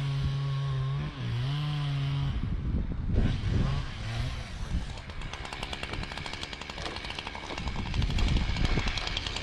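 Chainsaw running: it holds a steady note for about two seconds, then goes into a rougher, clattering stretch that gets louder near the end, typical of the saw working into wood.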